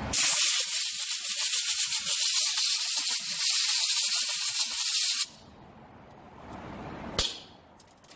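A compressed-air blow gun blasts a steady, loud hiss for about five seconds and then cuts off suddenly; near the end comes one short second puff. It is blowing iron filings off the magnetic drain plug of a truck transmission.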